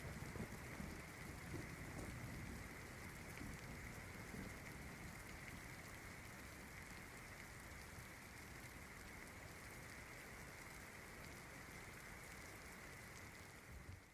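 Rain sound effect, a faint steady hiss of rainfall, fading out at the very end.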